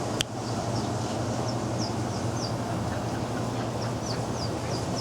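Series of short, high, falling bird chirps repeating irregularly over a steady low background hum, with a single sharp click just after the start.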